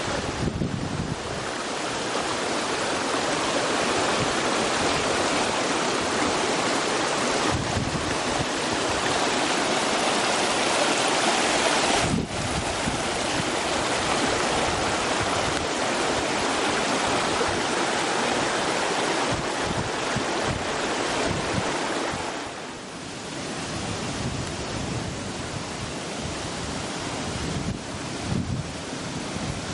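Yoro Falls waterfall: a steady rush of falling water, briefly interrupted about 12 seconds in and softer for a moment around 23 seconds.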